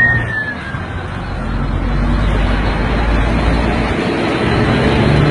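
Steady road and engine noise of a moving vehicle, heard from inside it, with a low rumble that eases about four seconds in. A short high whistle-like tone falls slightly in pitch right at the start.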